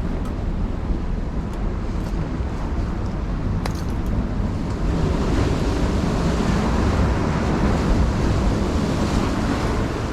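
Strong wind buffeting the microphone over the wash of surf. The hiss of the waves grows louder about halfway through, and there is a single sharp click a little before that.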